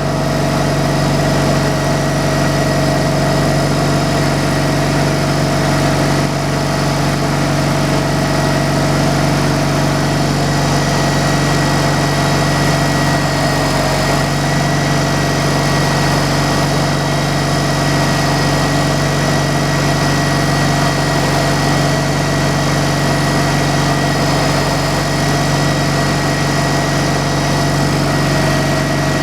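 Portable sawmill's engine running at a steady speed, with an unchanging drone and a constant higher tone over it.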